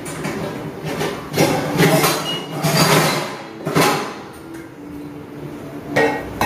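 Kitchen things being handled: several short bursts of clattering and rattling, the loudest about three seconds in, and a single knock near the end.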